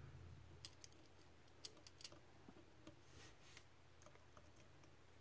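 Faint, sharp clicks of small metal lock parts and tools while a Medeco M3 cylinder is being taken apart, several in the first two seconds, then a brief scrape a little past the middle, over a low steady hum.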